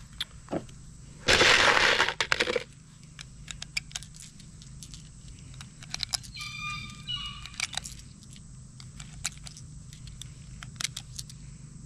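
Handgun cartridges being pressed one at a time into a pistol magazine: scattered small, sharp metallic clicks. About a second in there is a loud rustling burst of noise lasting about a second, and near the middle a brief high chirping tone.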